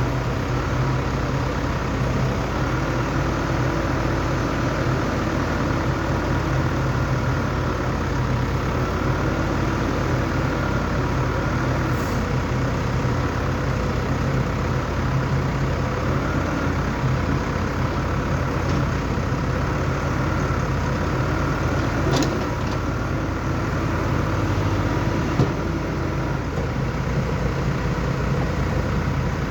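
Diesel engine of an excavator running steadily, with a few short sharp knocks from the machine.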